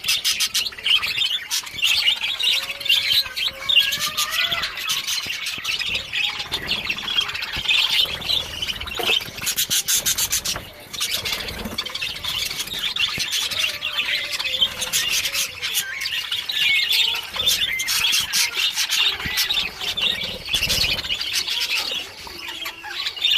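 A flock of lovebirds chattering without pause: many overlapping high-pitched chirps and squawks.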